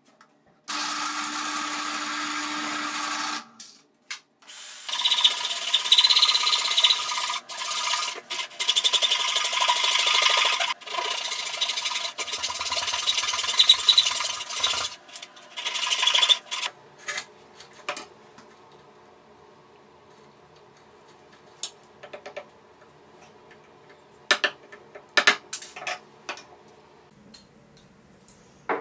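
A benchtop drill press runs for about three seconds, boring into a block of wood. Then a hand saw cuts wood in repeated strokes for about twelve seconds, followed by a few scattered light knocks.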